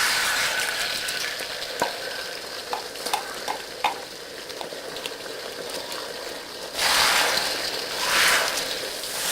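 Eggs frying in hot oil in an electric wok, giving a steady sizzle. There are a few light clicks of a utensil against the wok in the first half, and the sizzle swells twice near the end as the eggs are stirred.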